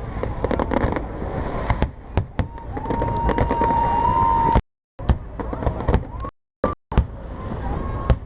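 New Year's fireworks display going off: a dense run of sharp bangs and crackles over a continuous rumble. A long steady whistle sounds for about a second and a half past the middle, and the sound cuts out completely twice for a fraction of a second.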